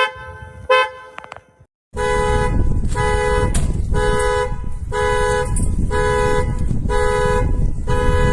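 Car horn giving two short toots, then, after a brief break, sounding in regular pulses about once a second over loud background noise, the on-off pattern of a car alarm blaring the horn.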